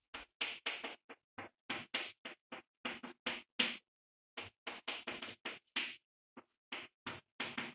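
Chalk tapping and scratching on a blackboard as characters are written: a quick run of short strokes, about four a second, with a brief pause about halfway through.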